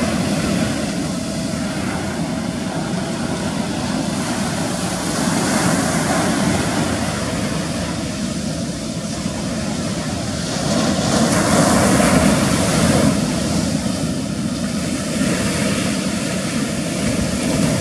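Small outboard motor on an outrigger fishing canoe running steadily under way, with surf breaking and washing around the hull; the surf swells louder about five seconds in and again around eleven to thirteen seconds.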